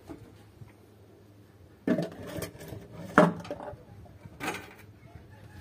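Clatter of hard household objects being handled: three short knocks and rattles with a brief ring, about two, three and four and a half seconds in, the middle one the loudest.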